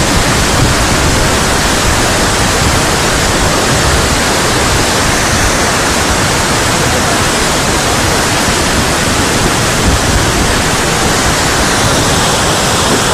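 Flash-flood water rushing steadily, a loud, even roar of noise with no break.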